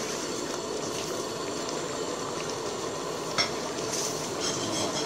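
Thick curry sauce simmering in an aluminium pot while a metal ladle stirs through it, with one sharp clink about three and a half seconds in as the ladle knocks against the pot.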